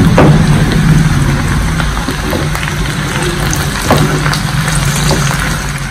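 Sliced onions, whole garlic cloves and ginger sizzling in hot oil in a nonstick pan while being stirred with a silicone spatula, with scattered crackles over a low steady hum.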